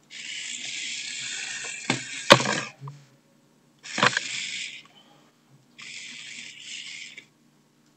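Bursts of hissing noise from an unseen small mechanism, three times, with sharp clacks about two seconds in and again about four seconds in as the plastic cone pieces are knocked together on the table.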